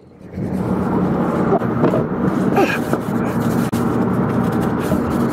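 A cloth rag rubbing and wiping the metal housing of a car's rear differential, with a few short squeaks about two seconds in, over a steady low hum.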